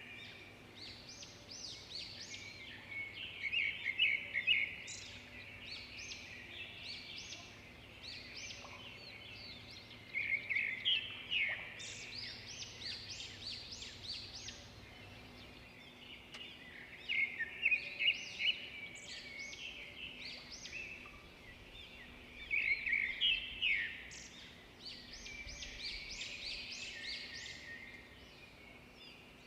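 Several songbirds singing and chirping at once, many quick high calls overlapping, with louder bursts of song every few seconds over a faint steady background.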